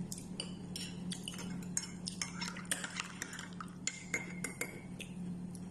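A spoon clinking and scraping against dishes in many quick, light clicks, over a steady low hum.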